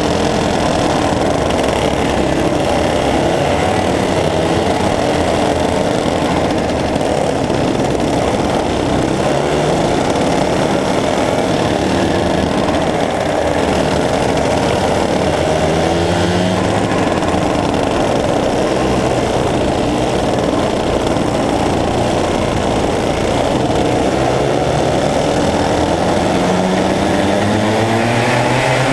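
A pack of racing go-karts' engines running together on the circuit, several engines overlapping and rising and falling in pitch. Near the end a single engine climbs steeply in pitch as it revs up.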